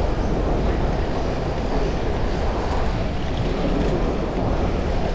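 Wind rushing over a GoPro action camera's microphone while riding a bicycle: a steady low rumble with no breaks.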